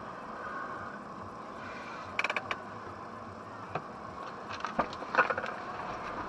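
Steady hum of a waiting car heard from inside the cabin, with a quick run of sharp mechanical clicks about two seconds in and a few more clicks and a short clatter later on.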